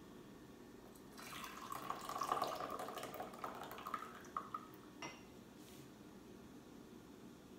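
Freshly steeped oolong being poured from a porcelain gaiwan into a glass pitcher, a trickling pour of about three seconds. A light clink follows about five seconds in.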